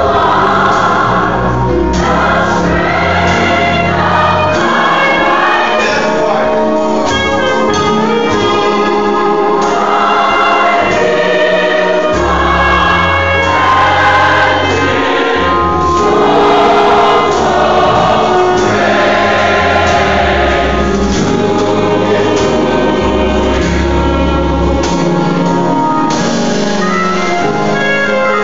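A large mixed gospel choir of men's and women's voices singing in full harmony, with low sustained bass notes from the accompaniment underneath.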